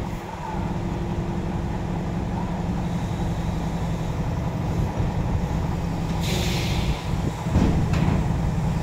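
Heavy diesel engines of a truck crane and a truck running steadily while the crane holds a shipping container. About six seconds in, a short burst of air hisses out for under a second, and the engine sound swells briefly near the end.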